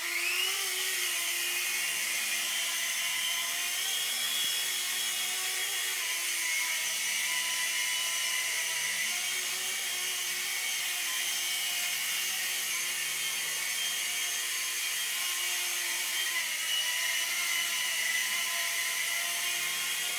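Small electric RC helicopter (Nine Eagles) running, its motor and rotor giving a steady high-pitched whine that rises briefly as it spins up and then holds with slight changes in pitch.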